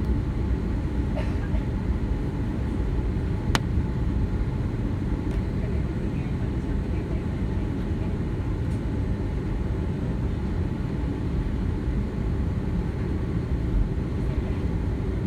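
Steady low rumble of cabin noise inside an Airbus A330-200 airliner, with a single sharp click about three and a half seconds in.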